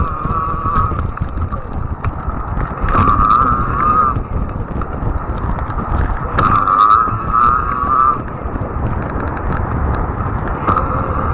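Fat-tire e-bike riding on a paved trail: wind buffets the microphone with a steady low rumble, over a whine from the bike that wavers around one pitch. The whine grows louder twice, about three seconds in and again from about six and a half to eight seconds, with a few brief rattling clicks at the same moments.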